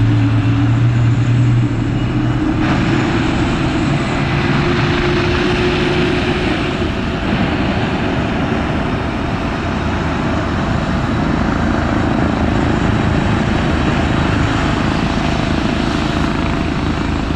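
Twin turbofan engines of a Boeing 767-300ER running, a loud steady roar with a low hum underneath. The sound fills out and brightens about three seconds in.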